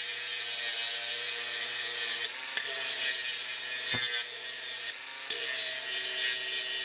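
Bosch GWS 180-Li 18 V cordless angle grinder running with a steady motor whine under a harsh grinding noise as the disc works the material. The grinding noise drops out briefly twice, about two and a half and five seconds in, as the disc eases off the work.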